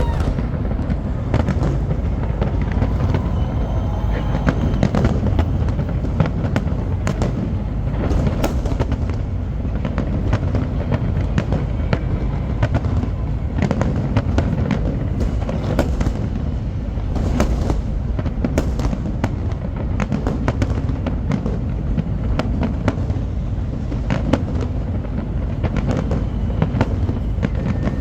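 Large fireworks display: aerial shells bursting with bangs and crackle, dense and overlapping over a continuous low rumble, with no let-up.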